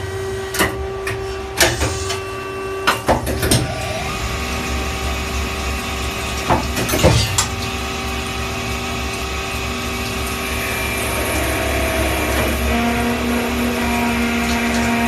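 Front-feeding automatic lathe running, a steady machine hum with several held tones, broken by sharp mechanical clacks several times in the first four seconds and again about seven seconds in.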